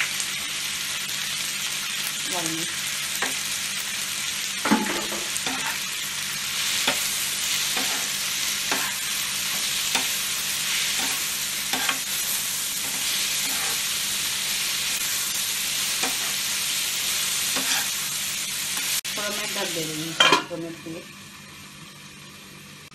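Tomatoes and onions sizzling in hot oil in a kadhai, stirred with a metal slotted spatula that knocks and scrapes against the pan about once a second. About 20 seconds in, a stainless steel lid clanks onto the pan and the sizzling drops to a muffled hiss.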